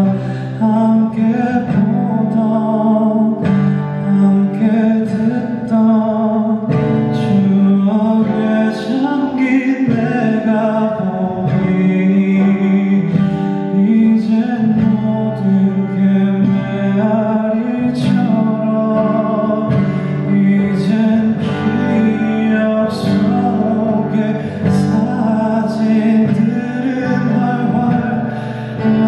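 A man singing a slow song with guitar accompaniment.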